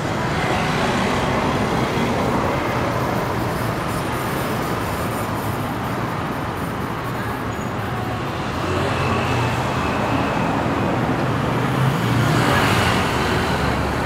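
Steady city road traffic, with vehicle engines running and passing. One vehicle passes louder and closer about twelve seconds in.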